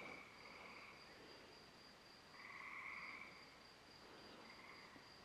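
Near silence, with faint night insects such as crickets trilling: a steady high tone, plus a few short trills, the clearest about two and a half seconds in.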